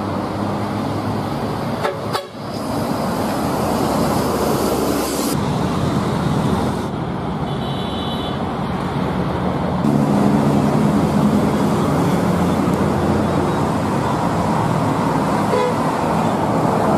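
Large buses driving past on a busy road, engines running amid traffic noise, with horns sounding, most strongly in the second half. The sound changes abruptly several times where short clips are joined.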